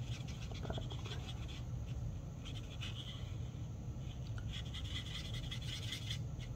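Marker tip scratching over cardstock in short, repeated colouring strokes, over a faint low steady hum.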